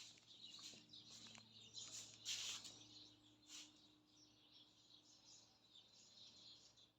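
Near silence, broken by a few faint, brief sounds in the first four seconds, the loudest about two and a half seconds in.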